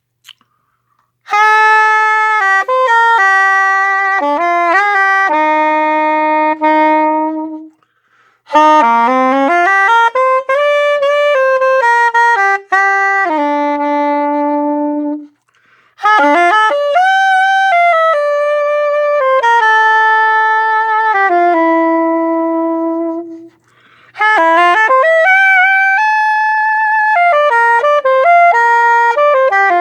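Soprano saxophone, a Selmer Series II with a Missing Link mouthpiece of .065 tip and a number 3 reed, playing four melodic phrases, each ending on a long held note, with short breaths between them. Its maker calls the tone of this mouthpiece a little darker.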